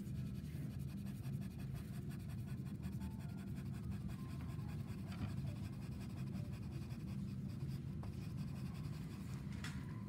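Sienna Conté pencil scratching across toned drawing paper in quick, repeated hatching strokes as the kettle's lid is shaded, over a steady low hum.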